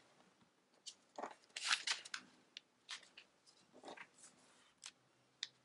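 Origami paper rustling and scraping as a long strip is folded lengthwise and the crease is pressed flat by hand: a string of short rustles and crinkles, busiest about two seconds in.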